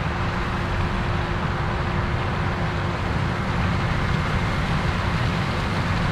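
Case IH AF10 combine harvesting corn with its 16-row corn head: the big diesel engine and threshing machinery run steadily, with a faint steady tone over the low rumble.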